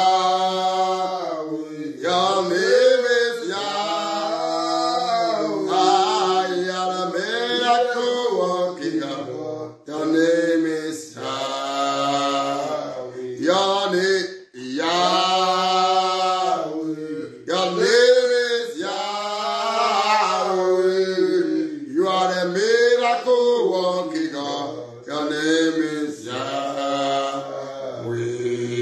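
A man singing a slow worship chant alone, with no accompaniment. He draws out long notes that bend up and down, with a few short breaks for breath.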